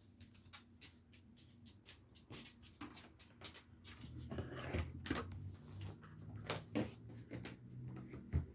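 Trading cards being handled and flipped through on a table: a run of quick, faint clicks and flicks.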